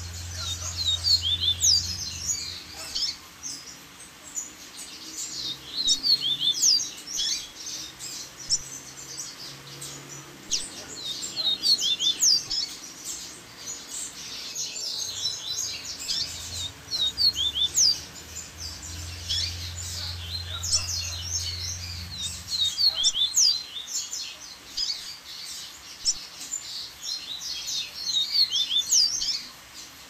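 Double-collared seedeater (coleiro) singing: fast twittering phrases of varied high chirps and slurred notes, about six phrases of two to four seconds each with short pauses between them.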